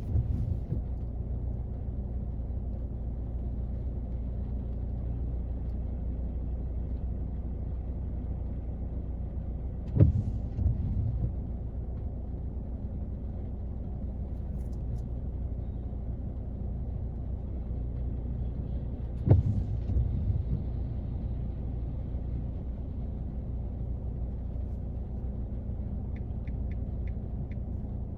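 Steady rain heard from inside a car's cabin, a muffled low rumble on the roof and body. A sharp thump comes about ten seconds in and again near twenty seconds, each followed by a few smaller knocks.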